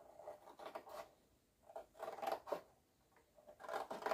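Cardboard pizza box scraping and rustling against sheet-metal bodywork in a few short, faint bursts.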